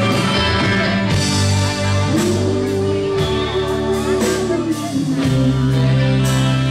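Live rock band playing, with electric guitar, bass guitar and drums. A long held note slides up about two seconds in and holds for about two and a half seconds.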